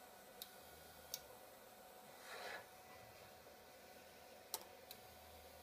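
Near silence: quiet room tone with four small sharp clicks, the loudest near the end, and one brief soft rustle about two seconds in.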